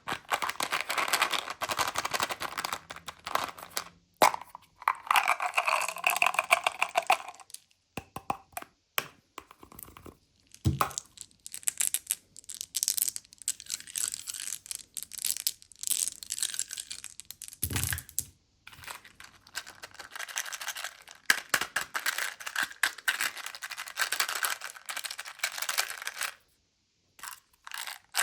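Candy packets being handled and opened: plastic wrappers crinkling and tearing, and small hard-shelled candies clicking and rattling, in dense stretches broken by short pauses. Two dull thumps stand out, at about 11 and 18 seconds.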